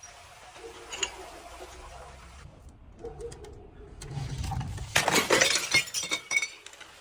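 Glass bottle shattering and crunching, a dense burst of breaking and clinking glass about five seconds in that lasts over a second, after a low rumble.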